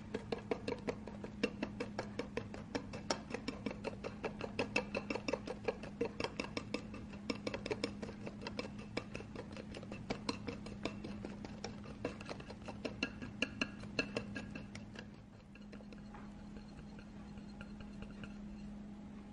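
Wire whisk beating dalgona coffee (instant coffee, sugar and water) against a ceramic bowl, several quick clicks and scrapes a second as the mixture is whipped to a foam. About fifteen seconds in the clicking turns softer as the mixture lightens and thickens.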